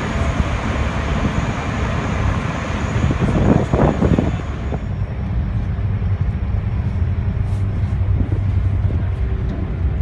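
Steady low engine rumble aboard a car ferry. A broad rushing noise lies over it for the first half. About five seconds in, the rushing drops away, leaving a steadier low hum.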